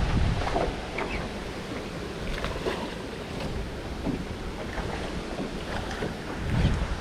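Wind buffeting the microphone in gusts, strongest at the start and again near the end, over water lapping against a small boat.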